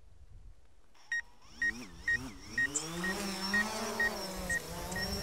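Quadcopter drone (DJI Phantom 4 Pro) motors starting up about a second in, several whines sliding up and down in pitch and crossing each other, with a short high electronic beep repeating about twice a second.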